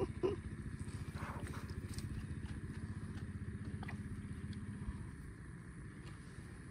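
A small engine running steadily with a rapid low pulse, fading away after about five seconds, with a few light clicks of handling close by.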